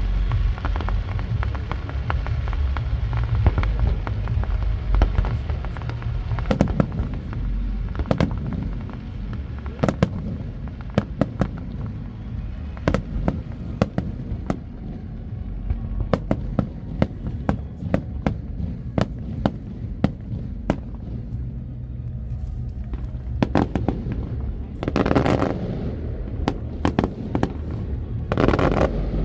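Large fireworks display: aerial shells bursting in many sharp bangs, irregularly spaced, over a continuous deep rumble. Two louder stretches of dense noise come near the end.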